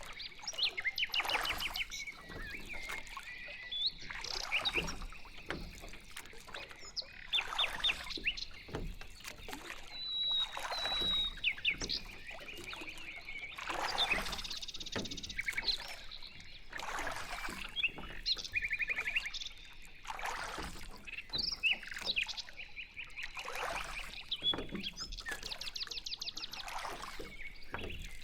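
Boat paddles swishing through the water in regular strokes about every three seconds, with birds chirping and trilling throughout.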